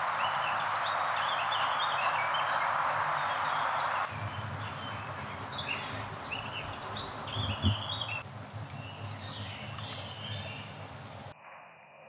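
Woodland birds singing, many short chirps and warbled phrases, over the steady rush of a brook that is loudest in the first few seconds. The sound changes abruptly near the end.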